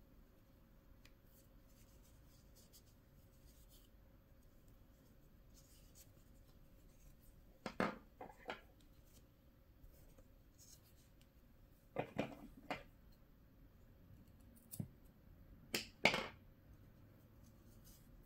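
Small scissors snipping yarn: short, sharp cuts in groups of two or three, starting about eight seconds in after a quiet stretch.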